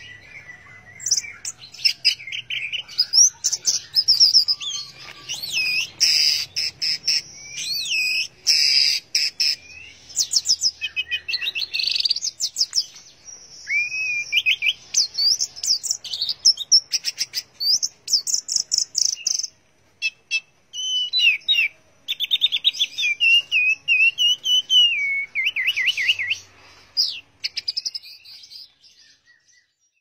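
Orange-headed thrush (anis merah) singing a long, varied song of fast whistled phrases, trills and sweeping notes, broken by short pauses, the longest about two-thirds of the way through.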